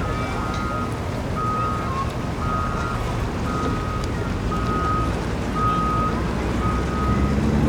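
A vehicle's reversing alarm beeping about once a second over the low running of its engine.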